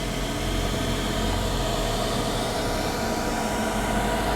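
12-volt portable ice-chest air cooler with its fan running steadily, blowing air, a constant whir with a low hum.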